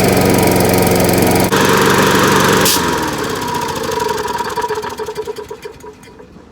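Snapper riding mower engine running hard on a shot of nitrous, then a sharp pop about two and a half seconds in. After the pop the engine slows and dies near the end, which the builder puts down to too much nitrous and not enough fuel.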